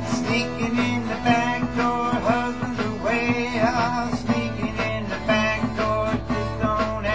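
Acoustic guitar strummed in an old-style blues groove over a steady backing beat, with a harmonica in a neck rack playing wavering, bending lines over it.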